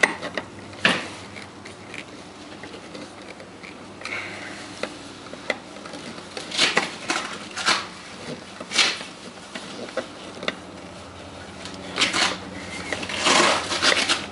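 Irregular metal clicks and short clattering rattles of hand work with tools and hardware, fitting up the 240 V outlet, with a few louder clusters of clinks spread through.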